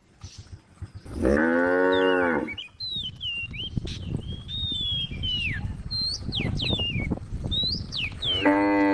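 Cow mooing twice: a long low moo about a second in, and another starting near the end.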